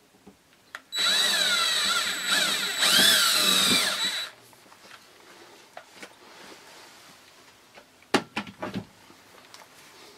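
Cordless drill with a twist bit boring a pilot hole through a plastic shower-curtain track, the motor whining for about three seconds with its pitch wavering up and down, then stopping. A few sharp clicks follow near the end.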